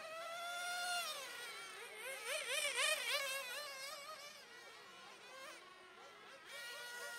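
1/10-scale RC touring cars' motors buzzing at a high pitch that swoops up and down as they are throttled on and off through the corners, with a fast wavering stretch about two to three and a half seconds in.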